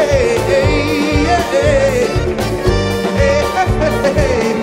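Live band music: a steady drum beat with electric guitar and violins under a male voice singing the melody.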